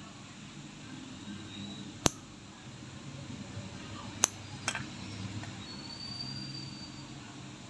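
Three sharp, short clicks of a toenail nipper snipping at an ingrown toenail, the second two close together, over faint room noise.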